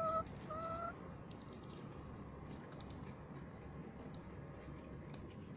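A hen gives two short, steady-pitched calls in the first second, then soft scattered clicks and crunches of animals eating dry cat kibble from a bowl.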